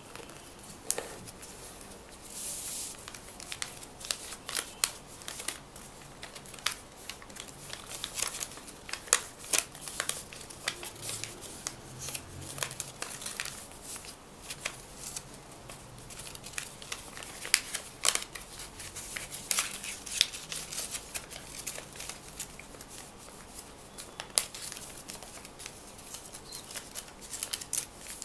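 Sheet paper being handled and folded by hand: irregular crisp taps, crackles and rustles as it is creased and pressed, with a longer rustle a few seconds in.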